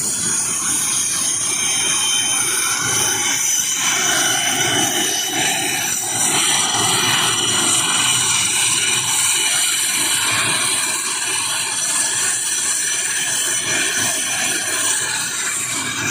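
Aircraft engines running near the parking stand: a loud, steady rush with a high turbine whine that drifts slowly lower in pitch.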